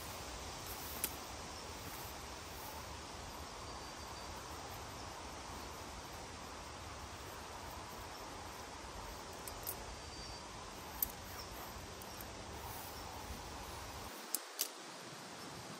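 Steady outdoor forest ambience, a soft even hiss, broken by a few short sharp clicks or snaps, two of them close together near the end.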